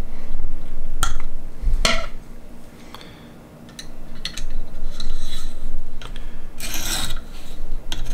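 Sharpening stone on a KME guided-rod sharpener drawn across a knife edge in a few rasping strokes in the second half, after two sharp clicks about a second and two seconds in. These are test passes to check that the angle, just lowered half a degree, now hits the whole edge.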